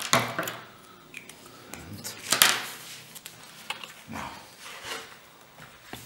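Handling noises from a model glider wing on a workbench: scattered rubs, taps and light knocks, the loudest about two and a half seconds in.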